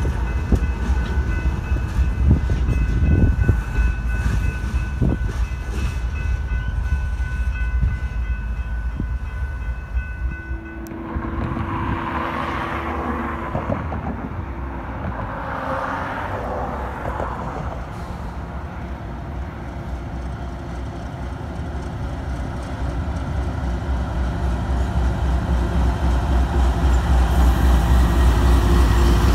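Diesel freight locomotive rolling slowly through a road grade crossing with one tank car, a heavy rumble with wind buffeting the microphone. After a cut, a second diesel locomotive approaches along the line, its horn sounding in the distance, and its engine grows louder as it draws near and passes.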